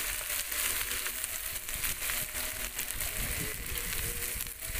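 Sliced onions frying in hot oil in a pot over a wood fire: a steady sizzle with many small spits and crackles as they are stirred with a spatula.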